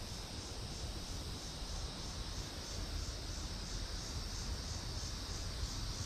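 Insects chirring in an even, pulsing chorus, about three pulses a second, over a low rumble.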